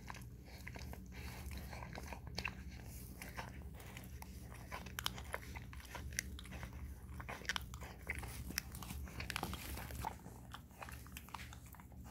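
Italian Greyhound mother licking and nibbling at her puppy as it emerges during birth: faint, irregular wet smacking and clicking.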